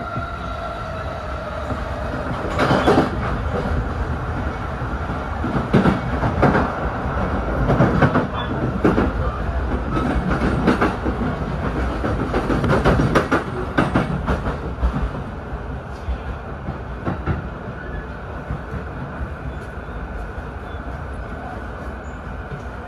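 Electric commuter train heard from inside the carriage: a steady rumble of wheels on rail with a run of sharp clacks as the wheels cross rail joints. It becomes smoother and a little quieter over the last several seconds as the train runs in alongside a station platform.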